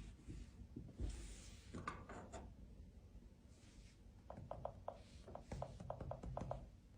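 Faint handling sounds from a foldable PC being handled: a soft knock and some rustling early, then a run of short light clicks or taps, several a second, through the second half.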